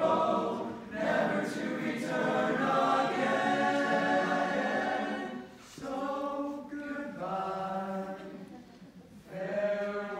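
Choir of teenage boys singing in sustained phrases. It pauses briefly between phrases a little past halfway and again near the end.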